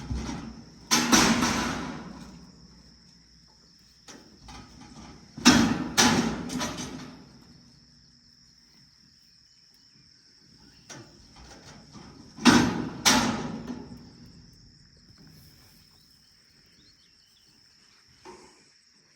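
Heavy clanking bangs on the broken-down small square baler, most likely someone working on its metal parts: three bursts of two or three strikes each, several seconds apart, each ringing out for about a second. A steady high insect drone runs underneath.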